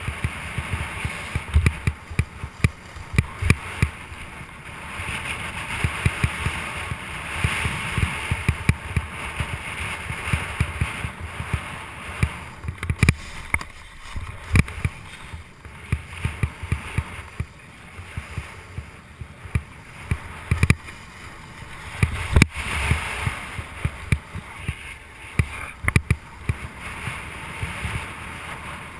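Snowboard sliding and scraping over slushy, rutted spring snow, heard from a camera mounted on the rider: a steady hiss of snow and wind with many low thumps as the board chatters over the bumps, and a few sharper knocks along the way.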